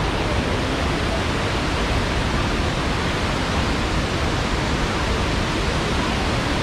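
Waterfall cascading over wide rock ledges: a steady, unbroken rush of falling water.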